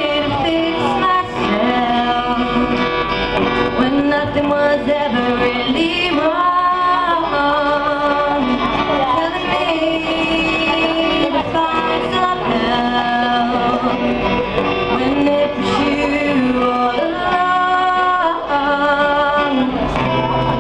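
A song sung by female and male voices over instrumental accompaniment, with long held notes that waver in pitch.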